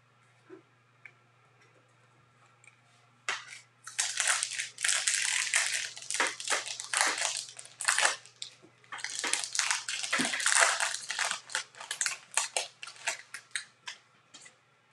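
A baseball card pack's wrapper being torn open and crinkled by hand. After a quiet start, a dense run of crackling begins about three seconds in and goes on until near the end.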